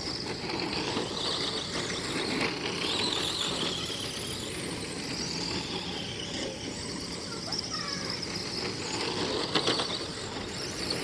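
Several radio-controlled race cars running laps together: high motor whines that rise and fall as they speed up and slow down, with some tyre squeal.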